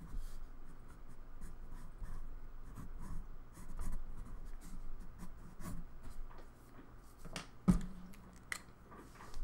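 Pencil sketching on sketchbook paper: soft, irregular scratching strokes. A single sharper click comes about three-quarters of the way through.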